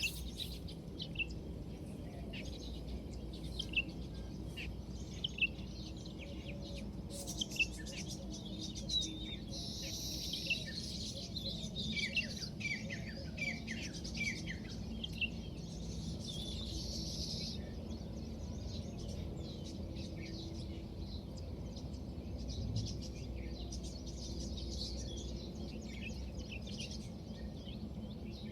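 Small birds chirping: many short, high chirps scattered throughout, with a busier flurry of quick falling chirps for several seconds in the middle. A low steady hum runs underneath.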